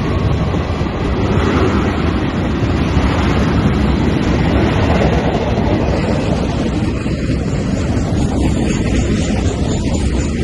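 Steady rumbling noise of a passing freight train, heavily mixed with wind buffeting the microphone.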